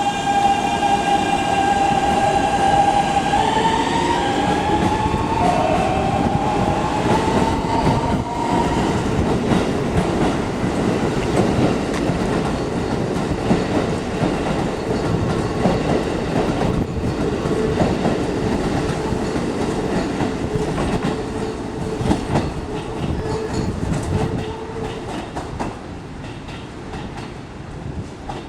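A Keikyu New 1000 series electric train pulling away. Its traction motors whine and climb in pitch in steps over the first several seconds as it accelerates. Then the wheels rumble and clatter over the rails as the cars pass, fading near the end.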